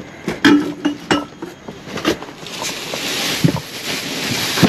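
A few knocks and clinks as ceramic items are handled in the first two seconds, then plastic bags rustling and crinkling steadily as gloved hands dig through them.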